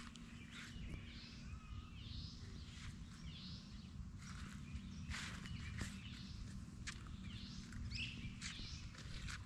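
Songbirds singing in the surrounding trees, short arching phrases repeated every second or so, over a faint low rumble.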